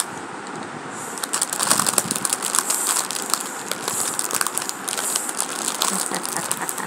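A plastic packet crinkling as it is handled: a dense, irregular run of small crackles, starting about a second in.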